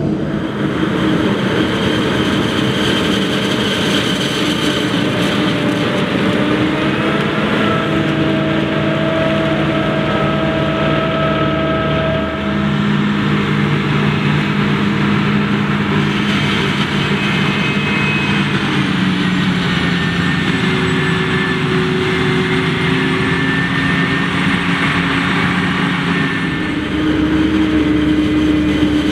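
John Deere 8500i self-propelled forage harvester running under load while chopping maize: a steady heavy engine drone with several high, steady whines over it. A tractor hauls a silage wagon alongside. The sound shifts slightly about 12 seconds and 27 seconds in.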